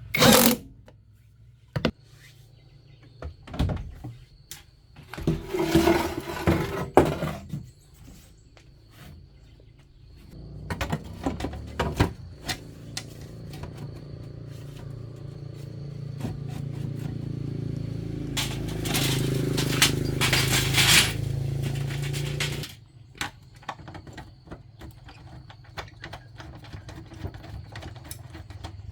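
Repair-work clatter: scattered clicks, knocks and scrapes of tools and parts. In the middle a motor runs steadily for about twelve seconds, slowly growing louder, then cuts off suddenly.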